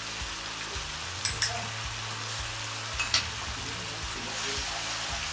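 Gochujang sauce sizzling steadily in a hot wok over a gas flame as it is stirred with a wooden spatula and cooked down to thicken. Two pairs of short knocks come about a second and a half apart.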